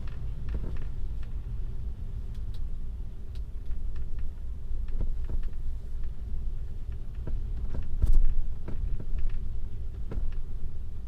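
Tesla's tyres rolling over a snow-covered road, heard inside the cabin as a steady low rumble with irregular sharp crunches and clicks. The loudest jolt comes about eight seconds in.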